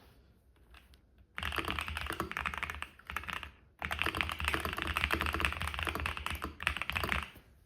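Typing test on a GMK67 custom mechanical keyboard with Holy Panda-style tactile switches and mostly recycled Razer keycaps: fast, dense keystrokes that start about a second and a half in, break off briefly around the middle, then run on until just before the end.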